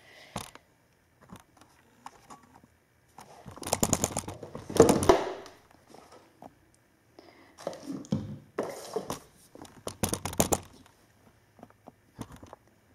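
Crinkling and rustling of a wrapper or packaging being handled, in several crackly bursts, loudest about four to five seconds in and again around eight to ten seconds.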